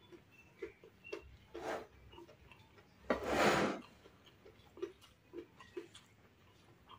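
Close-up eating sounds of a person chewing crispy fried battered tofu stuffed with meatball: scattered soft mouth clicks and smacks, with one louder noisy burst lasting under a second about three seconds in.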